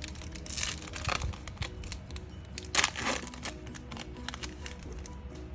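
Foil Yu-Gi-Oh booster pack crinkling and being torn open in a few short rustling bursts, the loudest about three seconds in, over steady background music.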